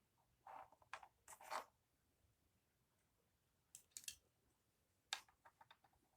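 Faint handling sounds of marble run parts: a short rustle and a few light clicks in the first second and a half, two more clicks about four seconds in, and a quick run of small clicks near the end.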